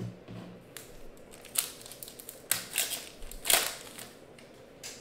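Foil wrapper of an Upper Deck SP Authentic hockey card pack being torn open and crinkled by hand, a run of short irregular crackles and rustles, the loudest about three and a half seconds in.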